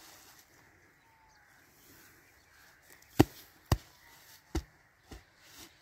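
Five sharp knocks over about two and a half seconds, starting about three seconds in; the first is the loudest.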